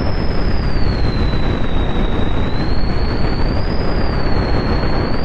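Synthesized hurricane wind sound effect: distorted, low-pass-filtered pink noise gives a loud, steady rush strongest in the low end, with a thin resonant whistle above it that slowly wavers up and down in pitch.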